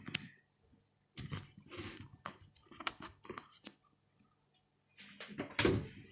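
Someone eating, with chewing and small clicks coming in short, irregular bursts, a pause of about a second, and louder bursts near the end.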